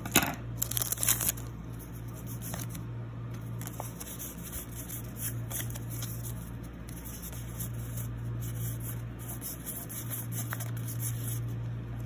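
Foil trading-card booster pack wrapper being torn open, with a few sharp rips in the first second or so. Then soft rustling and sliding as the cards are worked out of the pack and handled, over a steady low hum.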